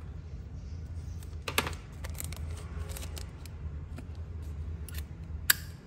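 A Zippo lighter being handled, making a few sharp metallic clicks: a loud one about a second and a half in and another near the end, over a steady low hum.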